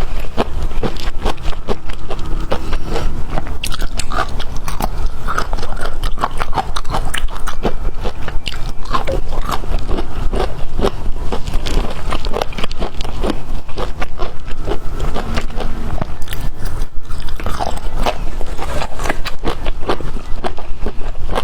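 Close-miked eating of bamboo shoots: steady biting and chewing with quick, crisp crunches, several a second.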